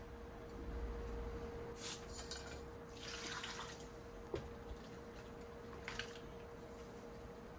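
Seasonings poured over beef short ribs in a pot: liquid seasoning splashing onto the meat, then sugar poured in about six seconds in, with a light clink and a sharp tap, over a faint steady hum.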